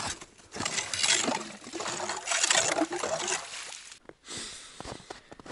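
Hand ice auger boring into lake ice: a rough, grinding crunch of the blades cutting ice and slush, uneven with the turns of the crank, stopping at about four seconds; a few faint clicks follow.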